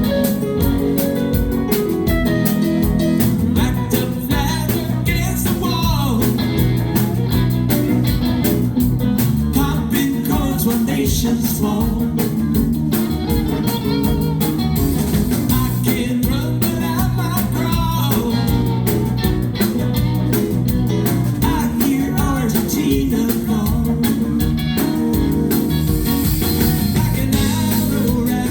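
Live band playing a song, with guitar over bass and drums keeping a steady beat.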